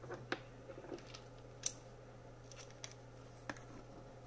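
A few scattered small clicks and taps of a small hand tool working on a laptop's metal and plastic chassis, the sharpest about one and a half seconds in.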